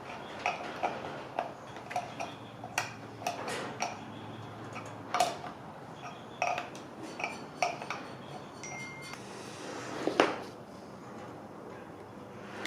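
Small metal parts clinking and clattering as they are handled and set down: an irregular string of sharp knocks with a brief ring, and a louder knock about ten seconds in.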